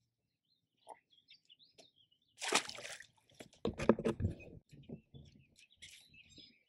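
Small birds chirping in short calls throughout. About two and a half seconds in there is a brief rustle, then a cluster of dull knocks from a person shifting about on a plastic kayak.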